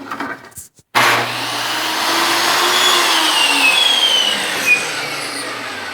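Electric power saw starting suddenly about a second in and cutting through a small piece of wood, running steadily with a low motor hum.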